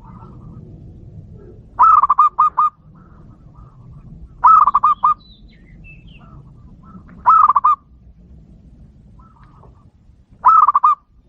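Zebra dove (local perkutut) singing: four short phrases of quick repeated cooing notes, each under a second long, repeated about every three seconds.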